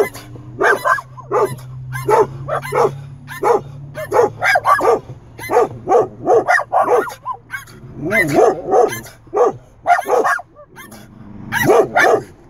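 A dog barking over and over inside a car, squeaky little barks coming about two a second, with a brief pause near the end.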